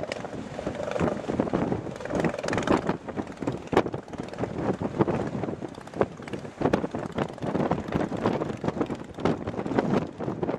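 Motorcycle engine running as the bike fords a shallow stream, with water splashing and rushing, under heavy wind buffeting on the microphone.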